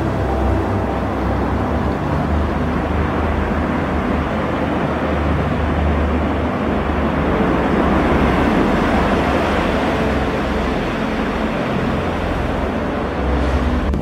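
Steady rush of surf breaking on a rocky shore, with a low rumble of wind on the microphone.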